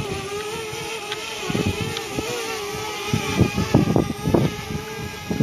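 DJI Spark quadcopter's propellers whining steadily, the pitch wavering a little as the motors fight a strong wind. From about a second and a half in, gusts buffet the microphone in irregular low thumps.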